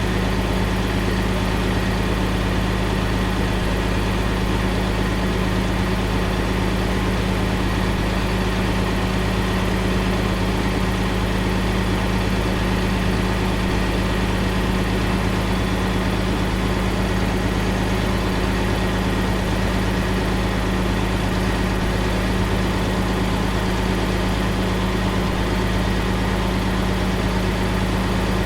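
Heavy truck engine running at a steady idle, an even low drone that neither revs nor changes.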